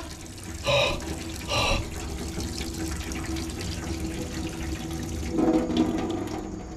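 Kitchen wall tap running, its stream of water splashing steadily into the sink. Two short louder sounds come about a second apart early on. Near the end the handle is turned and the flow thins to drips.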